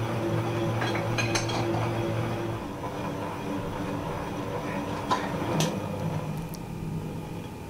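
Stand mixer running with a steady motor hum, its wire whisk whipping Swiss meringue in a stainless steel bowl, with a few sharp clinks of metal on metal. The hum changes pitch twice.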